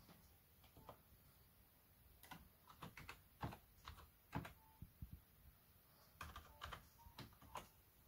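Faint keystrokes on a computer keyboard as a password is typed, coming in short runs of a few clicks with pauses between them.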